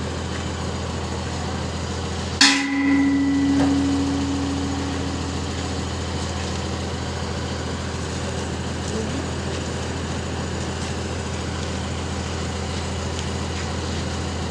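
A heavy diesel engine idling steadily, with one loud metallic clang about two and a half seconds in that rings on and fades over a few seconds.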